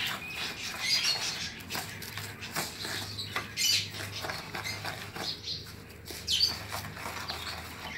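Pearl millet grains being stirred and mixed by hand, an irregular rustling and clicking of grain.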